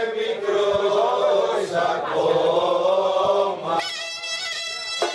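A group of voices singing a folk tune over the beats of a daouli drum. About four seconds in the singing breaks off and a loud, shrill reed instrument takes up the tune over the drum.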